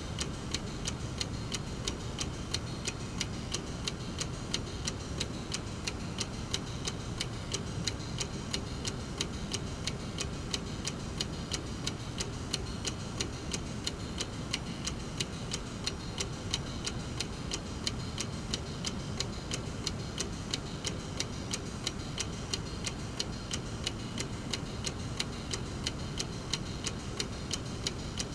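Brass mechanical clock movement ticking steadily, its escapement giving an even run of sharp clicks.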